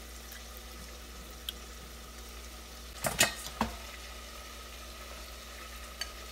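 Kitchenware knocks: a few sharp knocks about three seconds in, from a ceramic bowl and a silicone spatula being handled over a plastic blender jar. A single light click comes about a second and a half in, and a faint steady hiss runs underneath.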